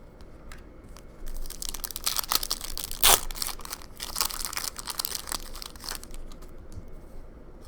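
Plastic wrapper of a trading card pack being torn open and crinkled, a dense crackling that lasts a few seconds with one sharp rip at about three seconds in.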